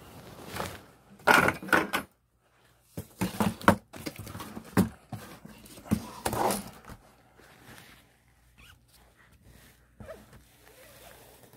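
Handling noise: plastic items knocked and shifted and material rustling, in irregular bursts through the first seven seconds, then only faint scattered rustles.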